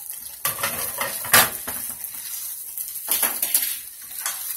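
Spatula scraping and knocking against a frying pan as fried rice with eggs is stirred, over a steady sizzle. The strokes come in two bouts, the loudest knock about a second and a half in, another run of scrapes about three seconds in.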